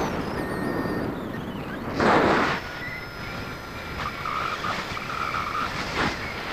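Airflow rushing over the camera microphone of a paraglider in flight, with a strong gust about two seconds in.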